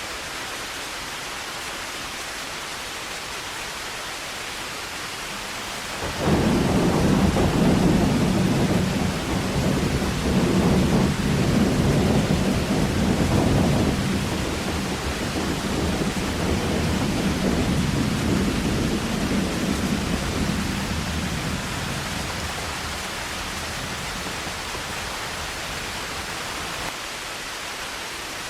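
Heavy rain falling steadily. About six seconds in, a deep rumble of thunder breaks in suddenly and rolls on for roughly fifteen seconds before fading back under the rain.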